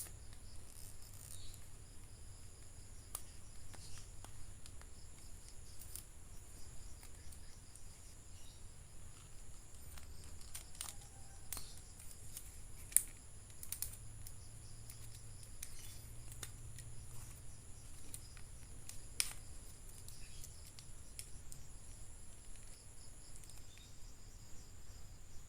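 Faint, scattered clicks and taps of toy action figures and their plastic packaging being handled, over a steady faint high hiss.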